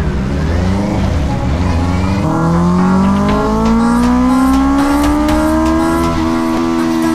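Freshly tuned Honda CB650R inline-four engine revving, its pitch climbing steadily for a few seconds and then holding level near the end.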